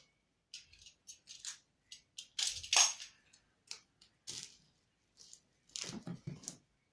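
A plastic packing bag being crinkled and rustled in short, irregular bursts, loudest about two and a half seconds in, with a few dull knocks about six seconds in.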